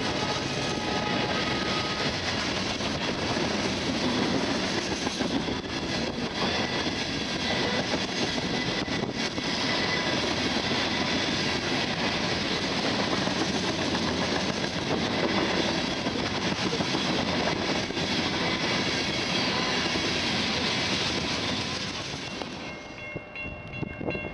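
Covered hopper cars of a freight train rolling past at speed: a steady rumble and rattle of steel wheels on rail. It fades away about 22 seconds in as the end of the train passes.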